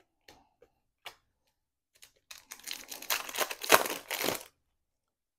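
A few light clicks of trading cards being handled, then about two seconds of crinkling and tearing as a foil trading-card pack wrapper is ripped open.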